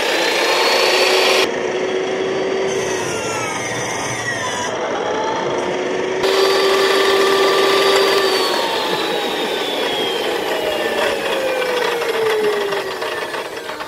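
Electric chop saw running as it cuts into a fully charged LiPo battery pack, the motor holding a steady whine, then winding down with a falling pitch over the last few seconds.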